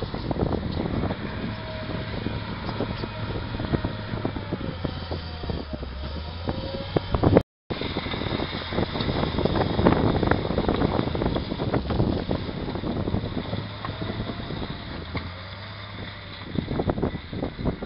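Volvo wheel loader's diesel engine working as it pushes and spreads rubble with a front blade, its whine rising and falling as it manoeuvres, with wind buffeting the microphone. The sound drops out for a moment about halfway through.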